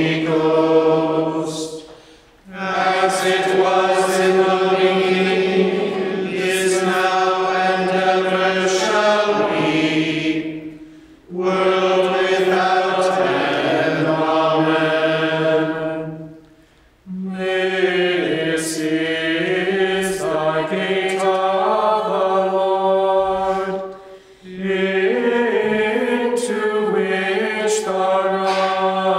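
Gregorian chant sung in unison by voices without accompaniment, in long phrases broken by brief pauses for breath.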